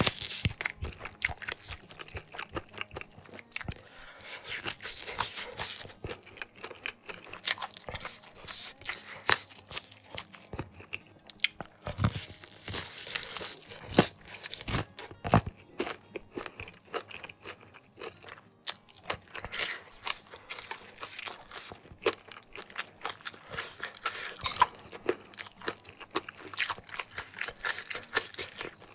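A person chewing and crunching crispy battered fried chicken, close to the microphone: a steady run of crunchy bites and chews with many small sharp clicks.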